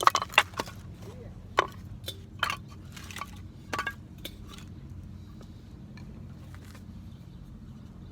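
Sharp, irregular knocks and clinks of wood and metal camp gear being handled, about a dozen in the first four seconds, then only a steady low background hum.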